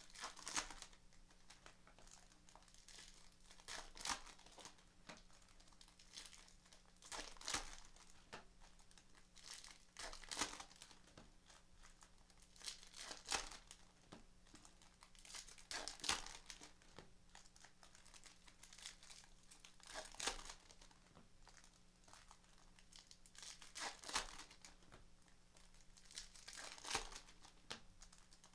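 Bowman Platinum baseball-card pack wrappers being torn open and crinkled one after another. A short, faint crinkly rustle comes every three to four seconds over a low steady hum.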